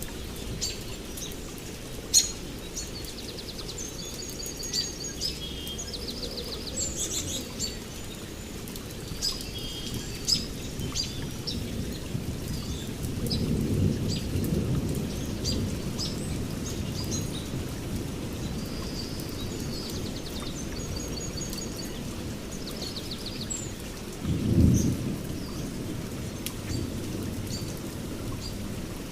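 Steady rain with many songbirds chirping over it. A roll of thunder swells about halfway through, and a louder, sharper thunderclap comes near the end.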